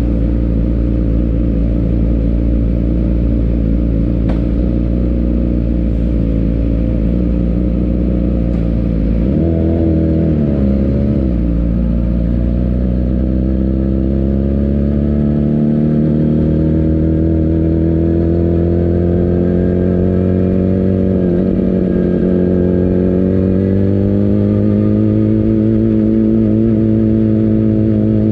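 600cc road-racing motorcycle engine running close by at low revs while the bike rolls slowly. The revs waver about a third of the way in, then climb gradually, dip briefly about three quarters through, and climb again.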